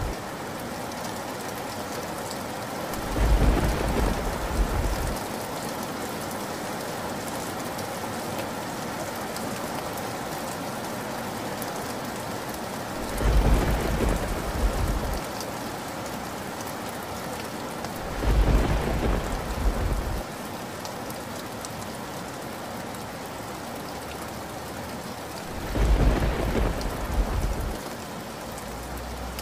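Steady rain falling, with four deep rolls of thunder, each lasting about two seconds and spread through the stretch.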